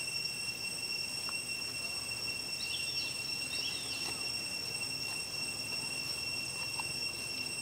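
Insects giving a steady, high-pitched continuous trill, with two short high chirps a second apart about three seconds in.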